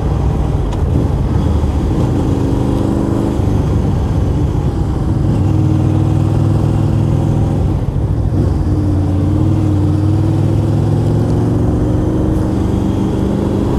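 Honda VFR800 V4 engine running under way as the motorcycle rounds a roundabout and pulls onto the main road, its pitch climbing and then stepping at several gear changes, with wind rushing past.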